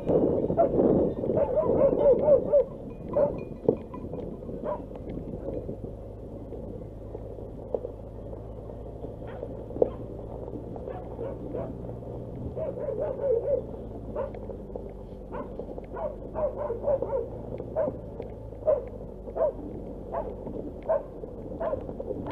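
Nissan Qashqai crawling over a loose, stony dirt track: short clicks and knocks from stones under the tyres over a faint, steady low engine hum. A dog barks in bursts of short calls, loudest in the first couple of seconds and again about halfway.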